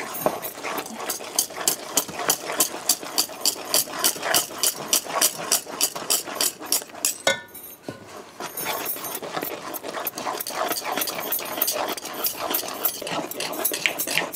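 A metal spoon stirring thick, sticky coconut fudge mixture in a metal pot, scraping and knocking against the pot about three times a second in a steady rhythm. The strokes break off briefly just past the middle, then go on more densely. The fudge is being worked until it thickens.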